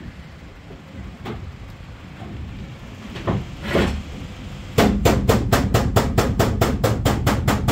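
A long metal bar knocking against the steel side panel of a Ram cargo van from inside, to push out a dent. A few scattered knocks, then about five seconds in a fast, even run of sharp strikes, about four or five a second.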